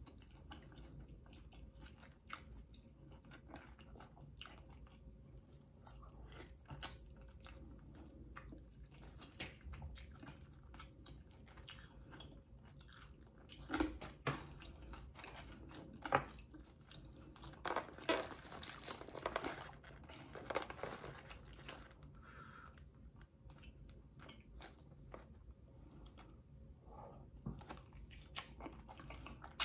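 A person eating chicken wings and fries close to the microphone: quiet chewing and mouth clicks, with a denser run of crunching about two-thirds of the way through.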